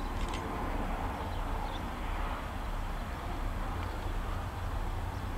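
HŽ class 2044 diesel locomotive's engine running with a steady low rumble as the locomotive approaches slowly with passenger coaches.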